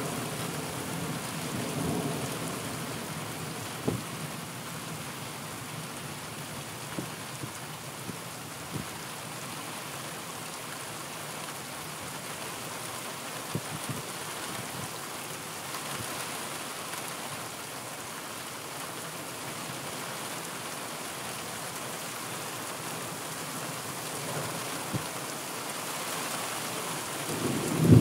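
Steady rain with scattered sharp drop hits, under a low rumble of thunder in the first few seconds. A sudden louder low burst comes just before the end.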